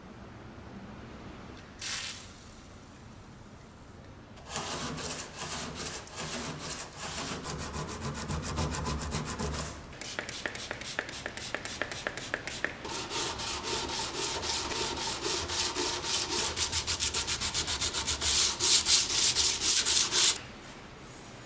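Hand sanding: sandpaper rubbed back and forth in quick, even strokes, growing louder toward the end and stopping suddenly.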